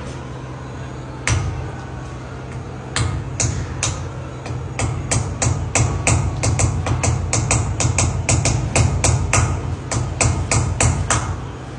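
Small hammer striking a chisel held against the edge of a glass stair balustrade panel, chipping the glass to shape it: sharp taps, a few spaced out at first, then quickening to about three or four a second.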